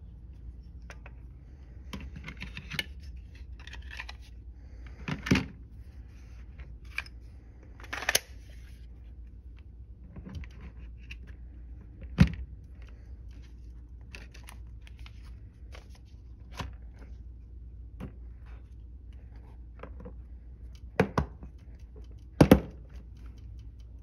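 Scattered plastic clicks, clacks and light knocks of polymer pistol magazines being handled and set into a hard plastic Glock pistol case. The loudest are a close pair of knocks near the end, which fit the case lid being shut.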